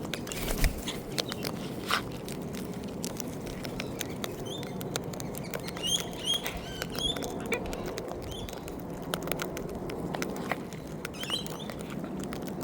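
Wild birds feeding on scattered seed: a steady patter of small clicks and taps, with short high chirps about four to seven seconds in and again near the end.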